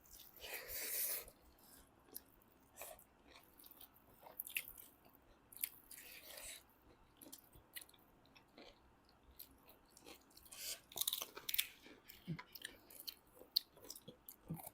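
People chewing pork close to the microphone: irregular wet mouth clicks and smacks, with louder bites about a second in and again around ten to eleven seconds in.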